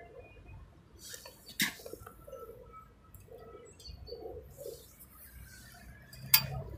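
Birds calling in the background: soft, repeated low cooing notes with a few short high chirps. Two sharp clicks cut through, about a second and a half in and again near the end, the second the loudest.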